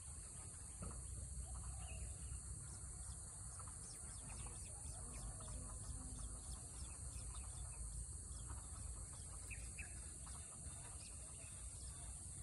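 Faint scattered bird chirps over a steady, high-pitched insect drone and a low rumble.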